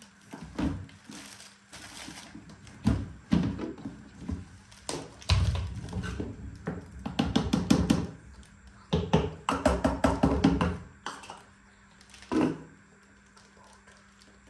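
Small metal sieve shaken and tapped over a plastic storage box while sifting flour: quick runs of light taps about five seconds in and again around nine seconds, with single knocks of the plastic box being handled.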